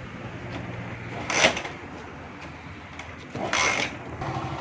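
Motorcycle engine idling, just started after a new ignition switch was fitted, with two short noisy bursts about a second and a half and three and a half seconds in. Near the end the engine runs a little louder.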